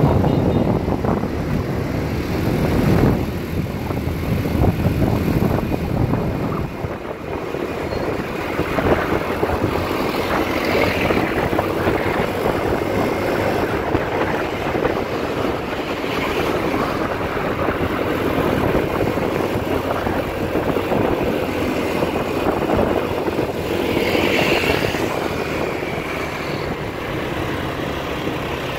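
Motorbike taxi riding in traffic, heard from the pillion seat: the small motorbike engine running under steady road and wind noise, with surrounding traffic. The low rumble is heavier in the first few seconds, then settles.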